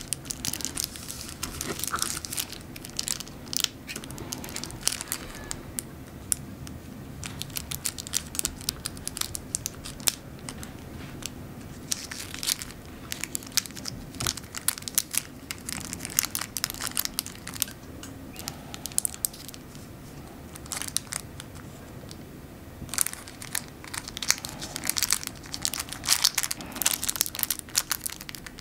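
Baking parchment (oven sheet) crinkling and crackling as fingers fold and press creases into an origami balloon, in clusters of sharp crackles with quieter spells between.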